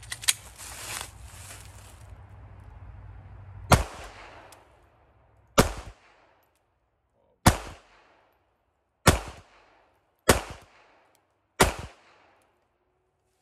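Glock 42 pistol firing .380 ACP, six single shots about one and a half to two seconds apart, each with a short echoing tail. Two sharp clicks come at the very start, before the first shot.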